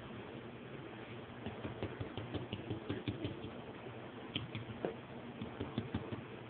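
Faint irregular clicks and scratchy rustles, starting about a second and a half in, from a hand stroking and patting the rough scaly hide of a juvenile Nile monitor lizard.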